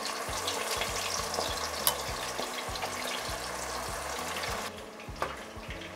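Marinated chicken pieces deep frying in hot oil, a steady crackling sizzle of rapidly bubbling oil. A sharp click sounds about two seconds in, and the sizzle turns quieter near the end.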